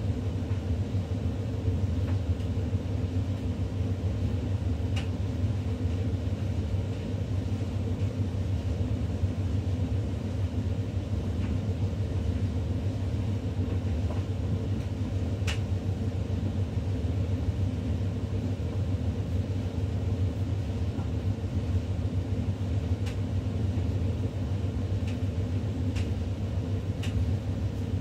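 Faure (Electrolux) 7 kg tumble dryer running with a steady low hum and rumble, and a few sharp clicks scattered through it.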